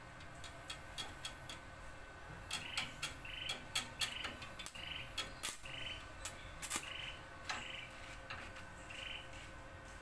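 Stick arc welder crackling in short, irregular sharp snaps as the electrode strikes and breaks its arc on the tricycle sidecar's steel frame. Over the middle of it, a short repeated call like a frog's sounds about twice a second.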